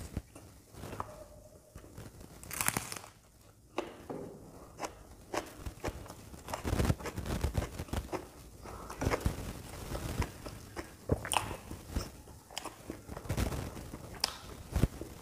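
Close-miked eating of fried puri (luchi) with dum aloo: irregular bites and chewing with small crunches and wet mouth sounds.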